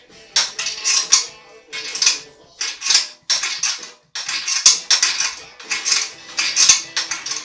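Metal hardware clinking and rattling in quick, irregular bursts, two or three a second, with brief pauses around two and four seconds in.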